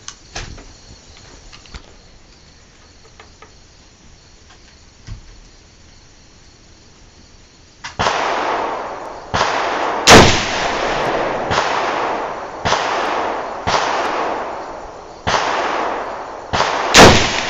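Rifle gunfire: a few faint clicks, then from about eight seconds in a string of about nine shots roughly a second apart. Each shot has a long echoing tail, and two of them, about ten and seventeen seconds in, are much louder than the rest.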